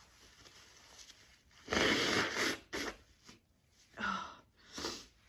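A woman sneezes once, loudly, about two seconds in, after a faint in-breath, then gives a few short breathy sounds. The sneezing is set off by a scented pine, orange and cinnamon candle.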